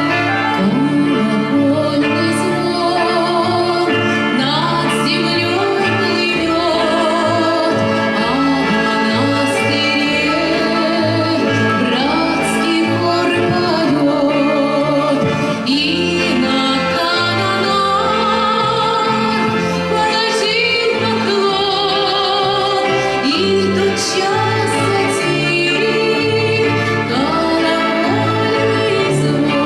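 A female soloist singing with wide vibrato over a live orchestra with bowed strings.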